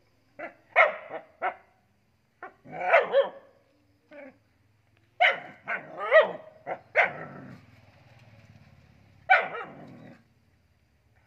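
A young dog barking in short, sharp bursts at a gecko it is pawing at: a few single barks, a quick run of several about five seconds in, then one more near the end.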